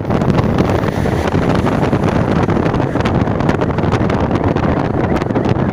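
Wind buffeting a microphone held at the window of a vehicle moving at highway speed, over steady road and engine noise.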